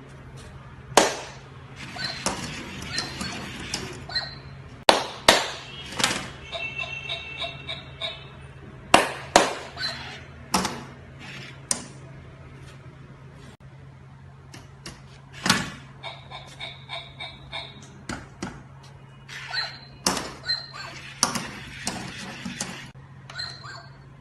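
Remote-control robot puppy toy being handled and operated: irregular sharp plastic knocks and clicks, with short high electronic beeps between them over a steady low hum.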